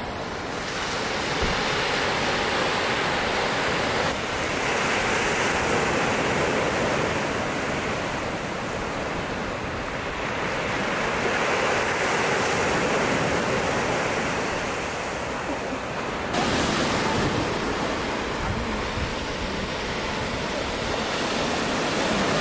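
Sea waves washing onto the shore: a steady rushing that swells and eases over several seconds, changing abruptly in level twice.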